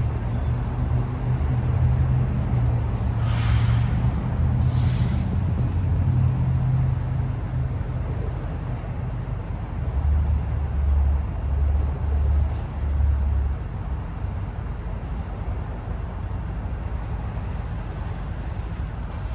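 Heavy diesel engine running with a deep rumble, with two short hisses of air a few seconds in and a slow, pulsing low throb around the middle, then settling to a steadier rumble.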